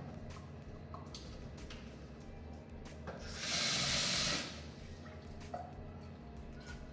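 Kitchen tap running into a pot in the sink for a little over a second, with a few light knocks and clinks of the pot.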